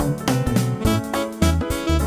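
Instrumental background music with a bass line and a steady beat.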